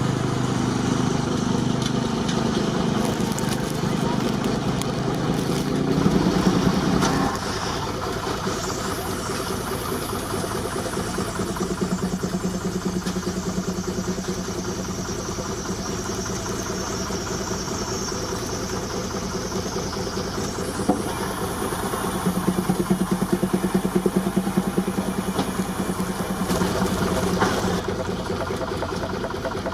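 Baker 19-65 Uniflow steam traction engine running on the belt, driving a sawmill, with a steady rhythmic mechanical beat. A steady low hum drops away about seven seconds in, and the beat grows louder for a few seconds near the end.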